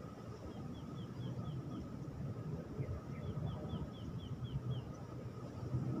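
A bird calling in two quick runs of short, high, falling notes, about four a second, over a low steady background rumble.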